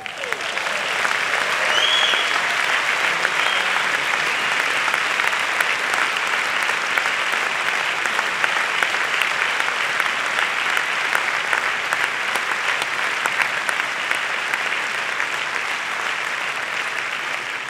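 Concert audience applauding steadily, rising over the first second and holding, with a brief high whistle about two seconds in.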